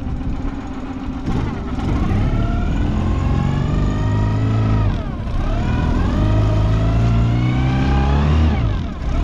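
Boat outboard motor revving up, its pitch rising steadily and then dropping back about five seconds in, rising again and easing off once more near the end.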